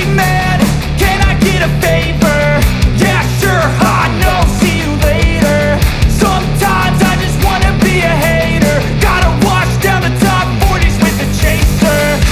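Loud background rock music with a driving drum beat.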